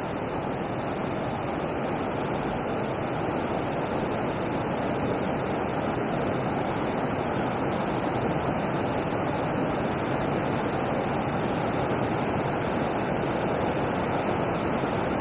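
Steady rush of water pouring over a river weir, with wind on the microphone.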